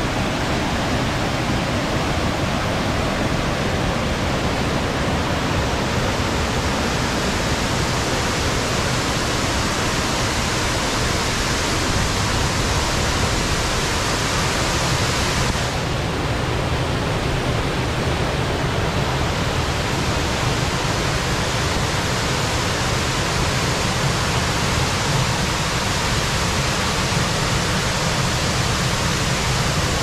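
Khandadhar waterfall, a tall waterfall, falling with a loud, steady rush of water that never breaks.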